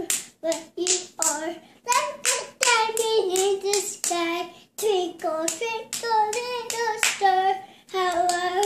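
A young girl singing in a high child's voice, in short sung phrases with brief breaks between them, clapping her hands along.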